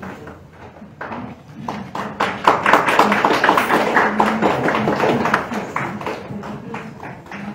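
Applause from a small crowd, many hands clapping close by, swelling about two seconds in and fading near the end, with voices murmuring underneath.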